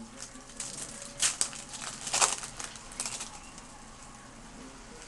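Baseball trading cards being flicked through by hand: a run of short rustling flicks for about three seconds, loudest around the middle, then it goes quieter.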